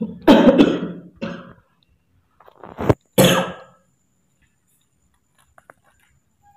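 A person coughing: a coughing fit at the start, and another about three seconds in, just after a sharp click.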